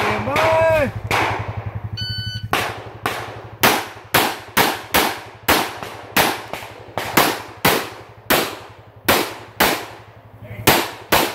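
A shot timer's start beep about two seconds in, then a long string of pistol shots at about two a second, fired in quick pairs and threes with short pauses between targets.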